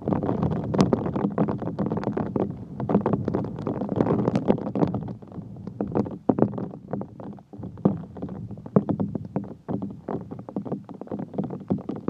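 Strong hurricane wind buffeting the microphone: a loud, uneven low rumble with rapid gusty pops that rise and fall throughout.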